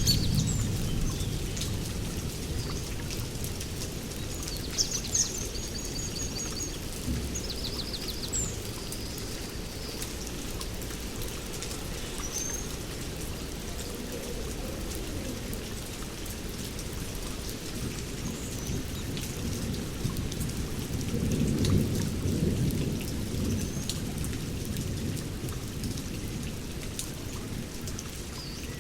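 Steady heavy rain with low rolling thunder that fades over the first few seconds and rumbles up again about two-thirds of the way through. A few brief high bird chirps sound over the rain in the first third.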